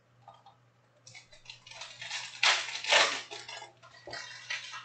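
Stacks of soccer trading cards handled on a tabletop: a run of shuffling, scraping and clacking, loudest in two strokes about halfway through.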